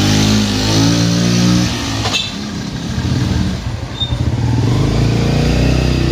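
Honda Little Cub's small single-cylinder engine revving with rising pitch as it pulls away. About two seconds in the sound changes abruptly to a steadier engine drone that grows louder toward the end.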